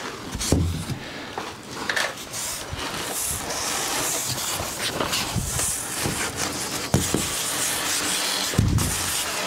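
Sheets of material being slid and rubbed across a surface, a steady scraping and rustling, with a few dull knocks about half a second in, about seven seconds in and near the end.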